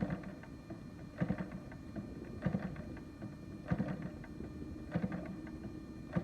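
DLE 35 RE single-cylinder two-stroke gasoline engine being turned over by flipping the propeller by hand with the choke on, about one flip every second and a quarter, each a short clatter through compression without catching. It is the engine's hard cold start: choked, with fuel not yet drawn up to the carburetor.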